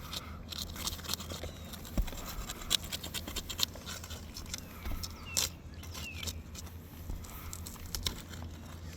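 Asphalt roof shingle being pried loose by hand, its adhesive seal strip breaking under the tool in irregular scrapes and clicks, with a steady low hum underneath.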